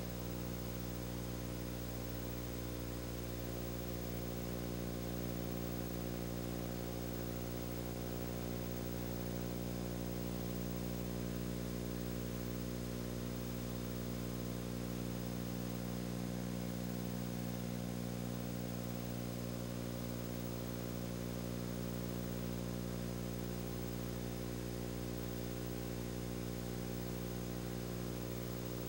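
A steady low hum made of many stacked tones over faint hiss. It does not change at all and no other sound is heard.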